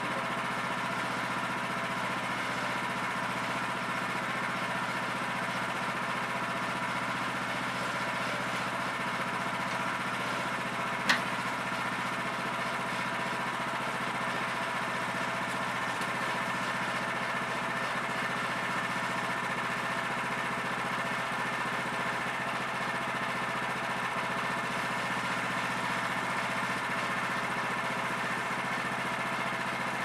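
Woodland Mills HM126 sawmill's gas engine running steadily, unloaded with the blade out of the cut. A single sharp knock about eleven seconds in.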